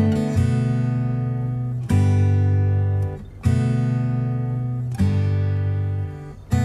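Background music: acoustic guitar strumming chords, a new chord about every one and a half seconds, each left to ring.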